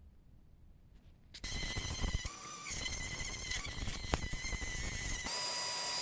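A handheld electric power tool starts about a second and a half in on the aluminium casting, its high whine wavering and dipping as it bites into the metal, then running at a steady pitch near the end.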